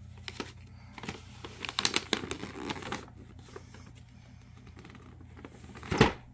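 Wrapping paper rustling and crinkling in irregular bursts as a small child tears at a wrapped present, with a short loud thump near the end.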